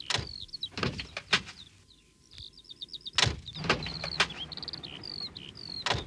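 1922 Morris Bullnose engine running with a low rumble, with several sharp clunks, under birds chirping in repeated trills.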